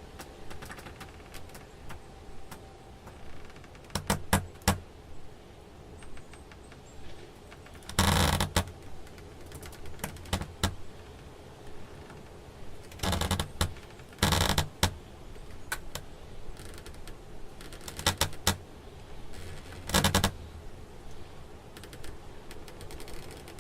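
Wooden door hinges creaking as the door swings, in about six short creaks of rapid ticking, each under a second, spaced a few seconds apart.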